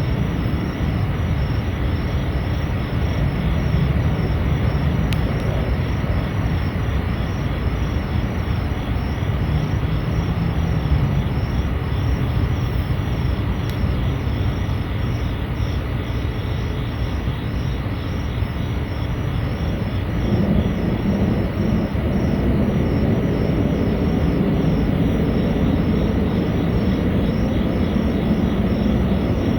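Loud, steady low rumbling drone of unknown origin, like a distant train or heavy machinery, heard over a wide area; it swells louder and fuller about two-thirds of the way through. A fast, regular high-pitched pulsing runs faintly above it.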